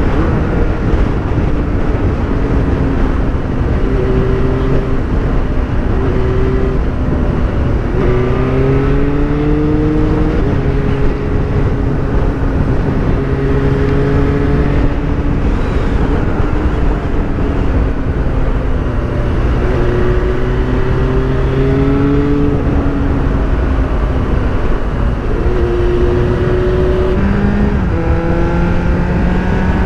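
Motorcycle engine under way, the Yamaha R7's parallel twin, its pitch climbing as it pulls and dropping at gear changes several times, over steady wind rush on the helmet microphone.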